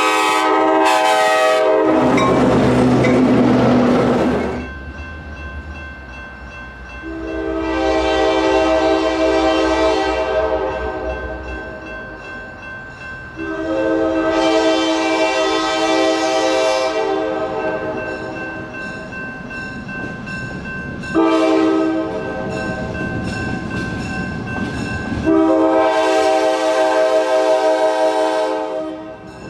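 Nathan K5LA five-chime locomotive air horn blowing the grade-crossing signal: long, long, short, long, over the rumble of the passing train. A horn blast cuts off just after the start, followed by a few seconds of train noise before the sequence begins.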